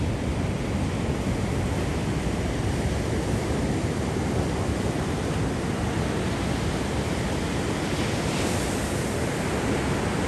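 Steady rushing noise of wind buffeting the microphone, heaviest and most unsettled in the low end, with a brighter hiss swelling briefly about eight seconds in.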